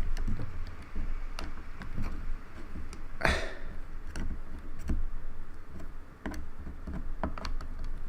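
Plastic keycaps of a Logitech K360 keyboard being pried up with a prying tool: scattered small clicks and taps, with one louder, longer scraping sound a little after three seconds in.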